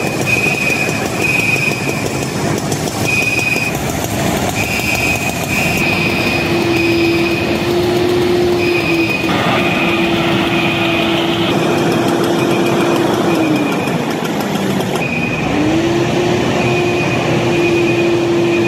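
Fire engine's pump and motor running under load with a loud steady rush. The engine note drops in pitch about two-thirds through and climbs back, while a high-pitched beeping sounds on and off.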